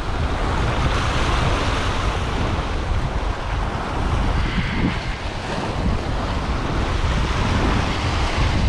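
Sea swell surging and breaking over rocks in a steady wash, with wind rumbling on the microphone.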